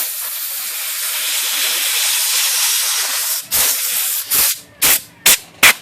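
A pressurized spray hisses into the type segment and typebar pivots of a Smith Corona Super Sterling typewriter in one long steady burst, then in four or five short blasts. It is flushing old gummy residue out of the pivots to free sticking keys.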